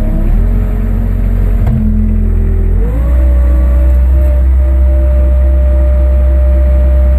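Kubota turbo diesel engine of a Bobcat 773 G Series skid steer running and being throttled up in two steps, about a third of a second in and again near three seconds, then holding steady at the higher speed.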